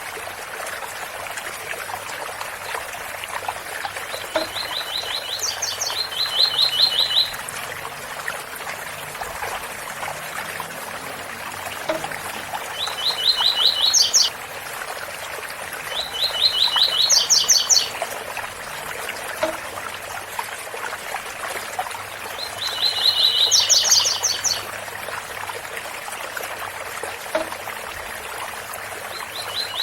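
Double-collared seedeater (coleiro) singing its 'tui tui' song, about five short phrases of rapid repeated notes that step up to higher notes, one every five seconds or so. A steady rush of waterfall runs beneath the song.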